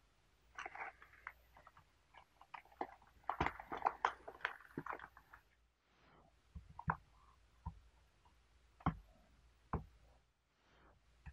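Foil tea packets crinkling and rustling as they are handled and moved about, for the first half; then a few single light knocks about a second apart as things are set down on the table.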